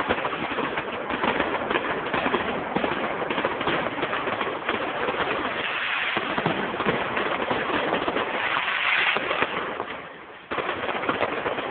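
Fireworks crackling: a dense, steady stream of rapid small pops that fades a little near the end, then comes back sharply.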